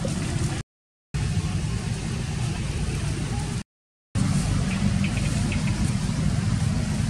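Steady low rumbling noise, broken twice by a brief moment of dead silence where clips are joined.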